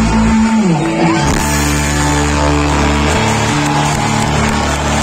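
Live electric rock band, with two electric guitars, electric bass and drums, playing loud. A falling slide comes about half a second in, followed by long held notes and chords, typical of a song's closing bars.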